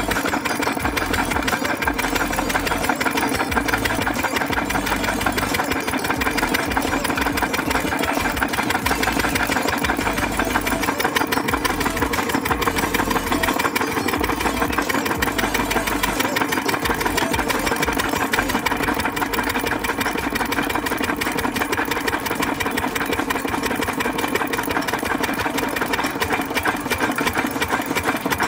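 Single-cylinder stationary diesel engine with twin flywheels running steadily with a rapid, even knocking beat, its exhaust piped into a balloon that it is inflating.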